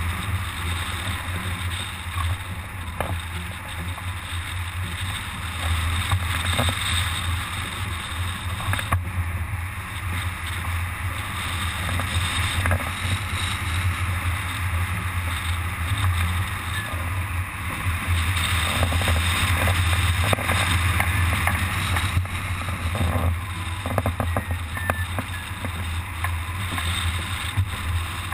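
Steady rush of airflow over a camera mounted on a hang glider in flight: a strong low rumble of wind buffeting the microphone under a broad hiss, swelling and easing slightly.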